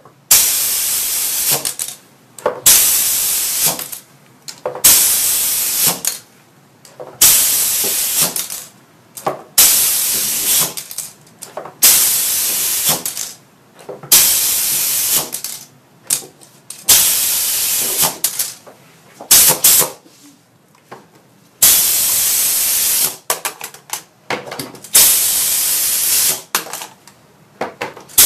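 Compressed air hissing in repeated bursts from a hand-held pneumatic gripper on an air line, cycled on and off to pick and place parts. There are about a dozen hisses, each a second or two long with a sharp start, coming every two to three seconds.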